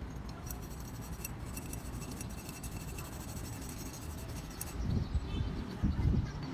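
Light scratching with faint ticks, then louder low knocks and handling noise from about five seconds in.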